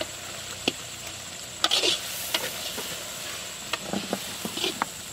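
Onion-tomato masala frying in oil in an iron kadai, sizzling steadily, while a metal ladle stirs it with scattered scrapes and clinks against the pan. The sizzle spurts louder briefly a couple of times as ground red chilli paste drops in.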